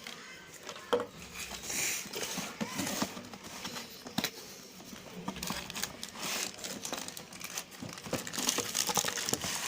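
Packaging being handled and unwrapped: continuous crinkling and rustling with some tearing, broken by scattered sharp clicks and knocks.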